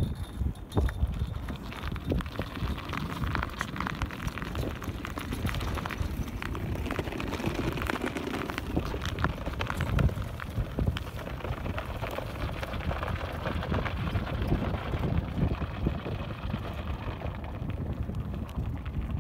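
Wind rumbling on the microphone, mixed with a continuous crackle of small clicks and a few louder pops.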